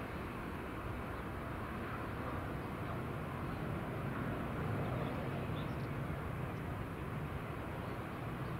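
Steady distant rumble of a Boeing 737's jet engines, swelling slightly around the middle, with a few faint high chirps.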